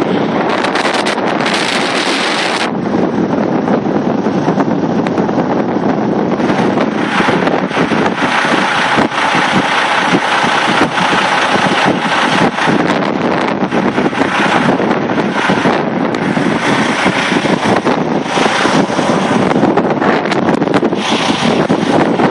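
Gusty severe-thunderstorm wind buffeting the microphone: a loud, continuous rush with rumbling gusts that rise and fall throughout.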